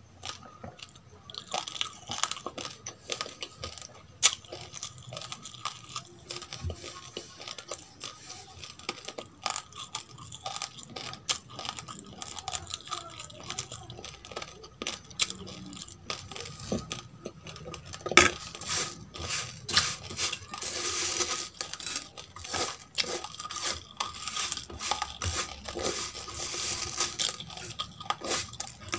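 Close-miked chewing of crunchy roasted rice grains: a steady run of irregular crunches and crackles, thicker in the second half.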